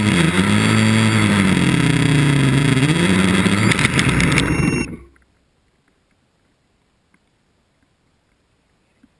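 Gaui quadcopter's electric motors and propellers whining, the pitch rising and falling as the throttle changes. About four seconds in it comes down in the grass with a few sharp clicks, and the motors stop about five seconds in.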